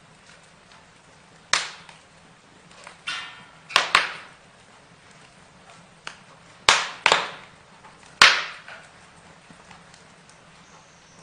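Burning wood crackling, with sharp, irregular pops and snaps every second or so over a faint steady hiss.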